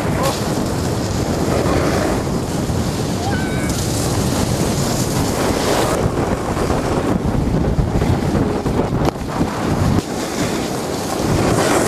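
Steady rushing of wind buffeting the microphone, mixed with the hiss of snowboards sliding over snow, while riding downhill.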